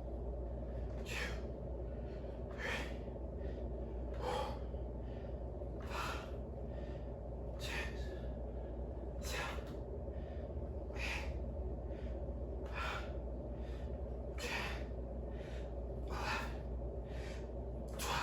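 A man breathing forcefully in time with each rep of a dumbbell bent row: a short, sharp breath about every second and a half to two seconds, steady throughout.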